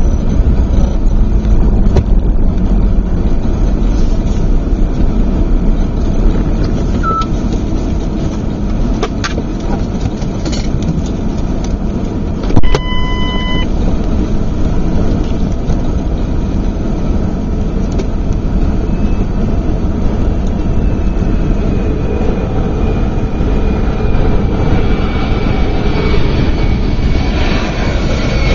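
Steady low rumble of the vehicle's engine and wheels on the runway pavement. About halfway through there is one short electronic beep, about a second long.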